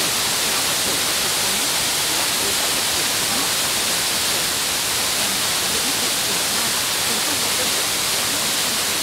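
Steady FM radio static: an even hiss from a receiver tuned to a very weak, distant signal on 56.4 MHz, with the faded station lost in the noise during long-distance F2-layer reception.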